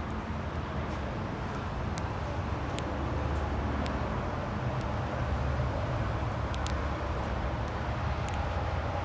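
Steady low rumble of outdoor background noise, with a few faint ticks scattered through it.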